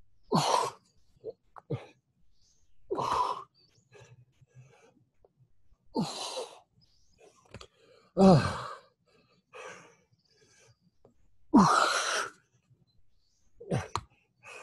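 A man breathing hard under the exertion of push-ups: forceful exhalations every two to three seconds, about seven in all, some starting as a short grunt that falls in pitch.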